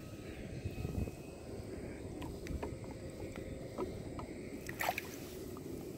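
Quiet water sloshing and small splashes beside a kayak hull as a largemouth bass is held in the water for release, with scattered light ticks and a short louder splash about five seconds in.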